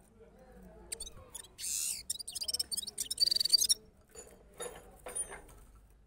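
A caged Gulsar, a small streaked finch, singing: a fast phrase of twittering notes with a harsh buzzy note, starting about a second in and ending near four seconds, followed by a few quieter notes.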